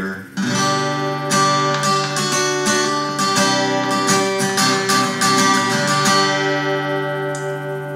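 A small-bodied acoustic-electric guitar, unplugged, being strummed with quick repeated strokes, its chords ringing, starting about half a second in. It has brand-new strings, which make it sound brighter.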